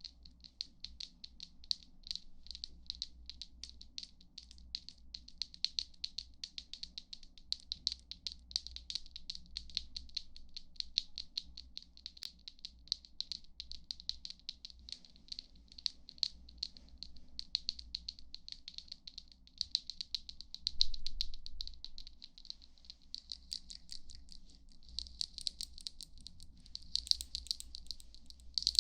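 Fast, crisp ASMR tapping and clicking: several light taps a second, growing busier near the end.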